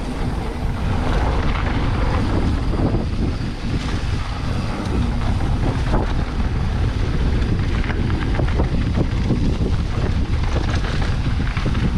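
Mountain bike ride heard from the rider's camera: wind rushing over the microphone and tyres running on a dirt trail. Scattered clicks and knocks from the bike rattling over the ground run throughout.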